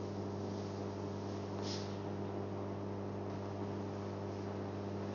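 Steady electrical mains hum with a faint room hiss, and one short soft hiss just under two seconds in.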